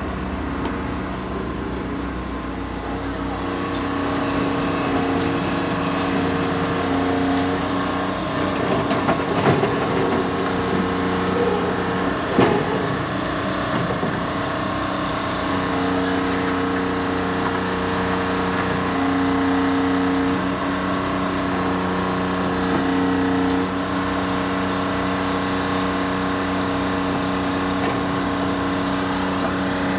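Diesel engines of a Jordan spreader and the locomotive pushing it, running steadily under load as the spreader plows the ballast and dirt, with a brief clatter of knocks about nine to thirteen seconds in.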